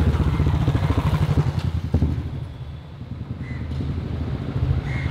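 A motorcycle engine running as the bike rides past, with a rapid low pulsing exhaust beat. It fades away about halfway through, leaving quieter background with a few short high chirps.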